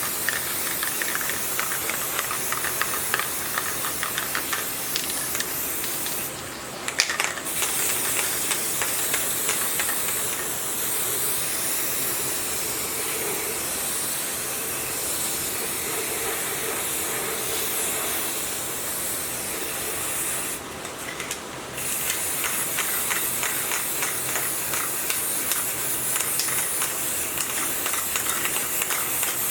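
Steady, loud spraying hiss of a high-pressure jet that stops briefly twice, as if a trigger is released and squeezed again.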